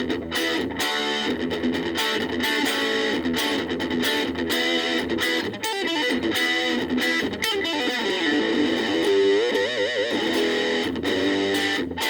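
Gaban Les Paul-type electric guitar played through a VOX Soundbox Mini amp, picking a run of chords and single-note lines. About nine seconds in, a held note is shaken with wide vibrato.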